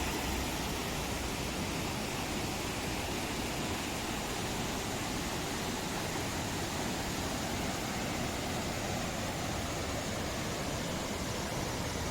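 Steady rushing of a mountain river or waterfall, an even roar of water.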